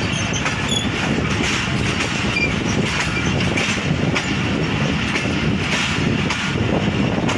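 Passenger train coach running along the track, heard from an open doorway: a steady rumble of wheels on the rails.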